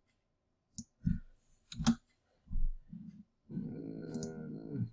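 Computer mouse clicking several times in the first two seconds, with a soft thump after them. A low, steady hum follows for the last second and a half.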